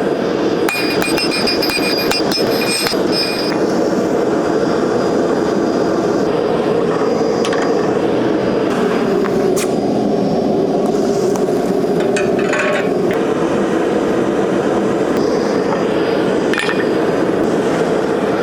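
Hand hammer striking hot 1080 steel on an anvil to flatten an over-pointed gouge blade: a quick run of ringing blows in the first few seconds, then a few scattered strikes. A steady rushing noise runs underneath.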